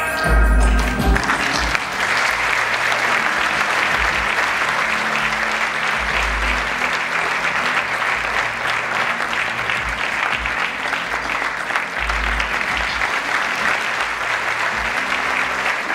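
Audience applauding steadily over backing music, the clapping starting about a second and a half in.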